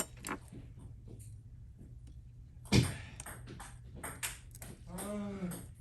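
Light metallic clicks and taps of small repair tools on an iPhone's metal frame and parts, with a sharper knock about three seconds in and a few quicker clicks after it.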